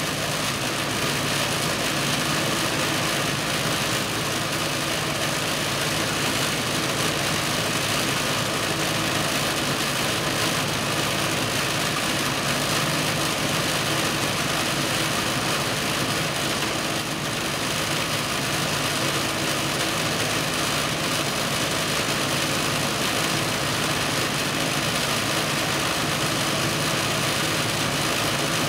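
A steady machine hum under a constant even hiss, unchanging throughout.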